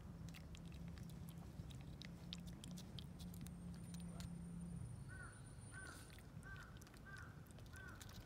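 A cat licking a lickable paste treat squeezed from a pouch held in a hand: faint, irregular wet clicks of the tongue.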